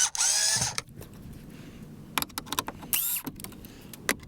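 Cordless drill whirring in two short bursts, the first about a second long with its pitch bending and the second a brief spin about three seconds in, with scattered clicks between.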